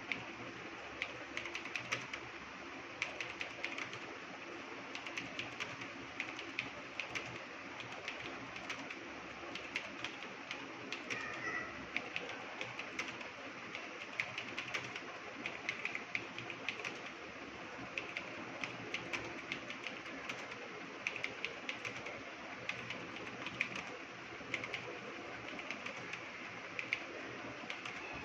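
Computer keyboard being typed on at a steady pace, a run of quick, irregular key clicks.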